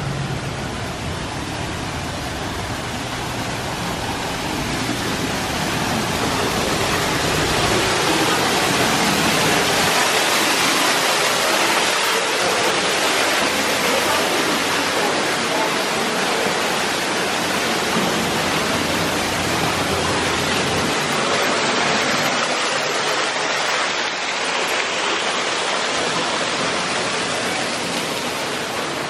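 Steady rushing of water from a waterfall or stream, an even hiss that grows a little louder partway through.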